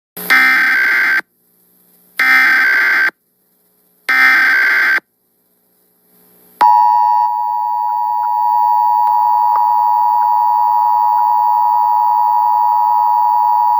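Emergency Alert System monthly test: three roughly one-second bursts of SAME header data tones, a buzzing warble, about two seconds apart. Then, about six and a half seconds in, the EAS attention signal starts, a steady two-tone alarm.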